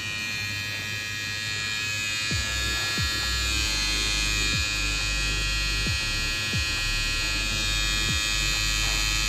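Sonar HP-300 battery nose and hair trimmer running: a steady high-pitched electric whine. A low hum joins about two seconds in, with short falling sweeps every second or so.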